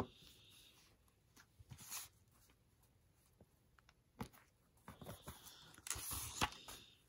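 Paper planner being handled: faint taps and small rustles as a sticker is pressed down onto the page, then a longer, louder paper rustle near the end as a page is turned.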